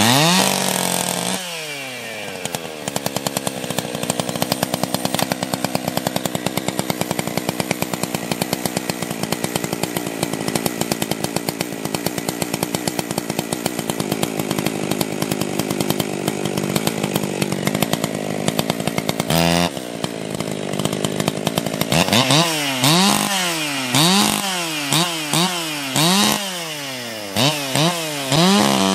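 Husqvarna 272 two-stroke chainsaw starting warm with no choke at half throttle and running steadily at fast idle. Near the end it is revved up and down repeatedly in quick blips.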